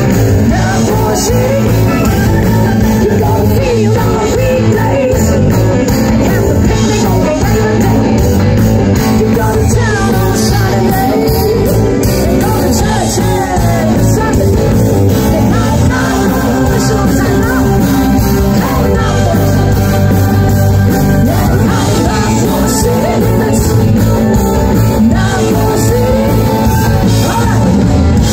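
Live rock band playing electric guitars, drums and keyboard with a singer over the top, loud and continuous.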